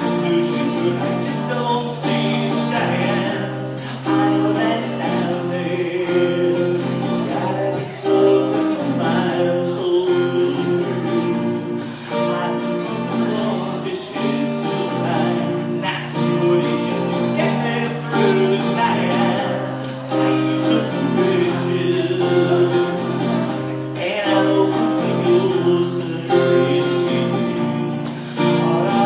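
A singer performing a song, accompanied by guitar.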